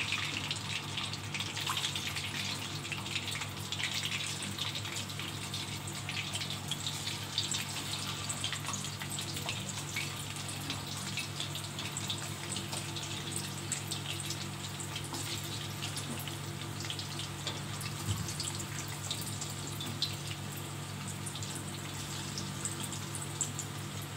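Chicken pieces deep-frying in hot oil in an aluminium wok: a steady sizzle with constant fine crackling and popping, a little stronger in the first few seconds.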